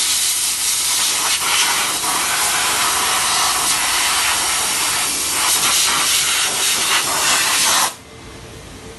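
Steam cleaner wand blasting a jet of steam over a car engine: a loud, steady hiss that cuts off suddenly near the end.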